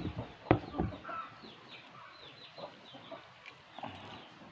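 A kitchen knife chops through a calamansi onto a wooden block: one sharp knock about half a second in, with a lighter one just after. Chickens cluck throughout, with many short, rapid falling chirps.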